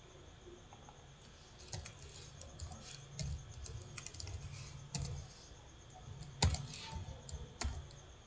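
Computer keyboard typing: irregular runs of key clicks, with one harder key strike about six and a half seconds in.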